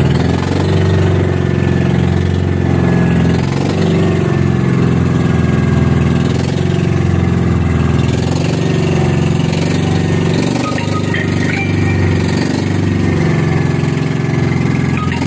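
The inboard engine of a motorized outrigger boat (bangka) running steadily, an even engine drone with no change in speed.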